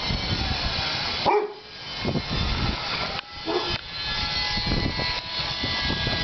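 Two dogs, a black-and-tan puppy and a larger black dog, play-fighting, with short barks about a second in and again a little past three seconds.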